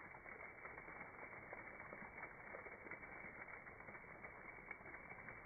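Faint pattering and trickling of liquid draining out of shot-through plastic milk jugs and splashing onto a wet wooden rail, a steady spread of many small ticks.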